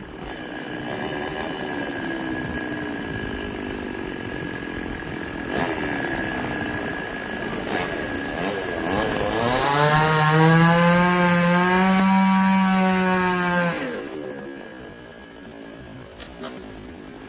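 Two-stroke chainsaw running at low speed, then revved to full throttle for about four seconds past the middle before dropping back.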